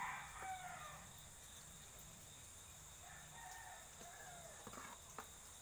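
Faint rooster crowing, two crows: one at the start and another about three seconds in. A few light knocks from the cardboard box and plant pots being handled.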